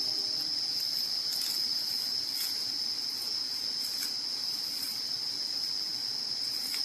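Chorus of insects, crickets or cicadas, making a steady high-pitched drone without pause.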